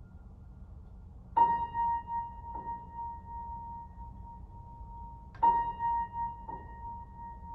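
Solo piano playing a slow, sparse passage: one high note struck twice, about four seconds apart. Each strike is followed a second later by a softer repeat, and the note is left ringing between them.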